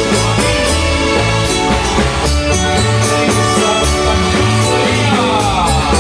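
Marimba band playing a son, with mallets on the marimba keys over electric bass, keyboards and drums, keeping a steady beat; a falling run of notes comes near the end.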